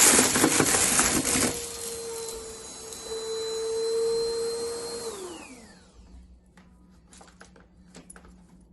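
Vacuum cleaner running on a rug, crackling loudly for the first second or so, then running with a steady whine. It is switched off about five seconds in and the motor winds down with a falling whine, followed by a few faint clicks.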